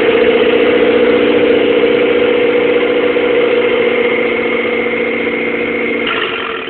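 1997 Mitsubishi Eclipse GS-T's turbocharged 4G63T four-cylinder idling with no downpipe fitted; the owner reports a rough, surging idle and does not know the cause. The sound slowly gets quieter and starts to fall away near the end.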